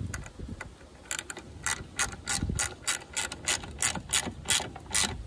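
Ratchet wrench clicking as it tightens a nut, a quick even run of clicks, about three a second, starting about a second in. The nut holds the LED lights' ground wire terminal to the car body.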